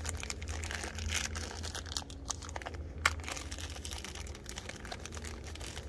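Scattered small clicks and crinkling rustles, close to the microphone, over a steady low rumble.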